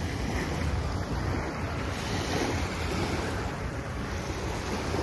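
Small waves washing up onto a sandy beach, with wind buffeting the microphone in a steady low rumble.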